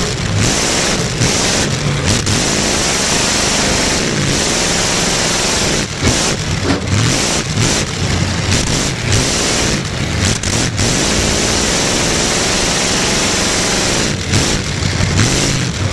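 Demolition derby car engine running loud through short open exhaust pipes poking up through the hood, heard from inside the car, revving up and down as the car drives. The sound is a dense, distorted roar with the engine pitch rising and falling throughout.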